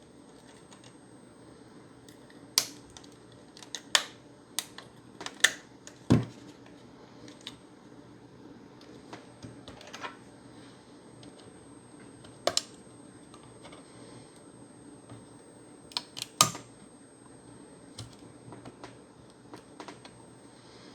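Irregular sharp plastic clicks and snaps, a dozen or so, from prying at the clipped-together plastic casing of an Xbox One S power supply, with a faint steady hum underneath.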